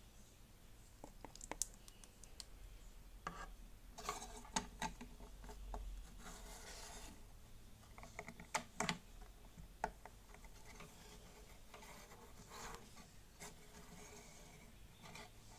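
Plastic Lego bricks being handled: scattered sharp clicks and scraping of pieces rubbing together as parts are fitted and the built skeleton model is moved about on its base.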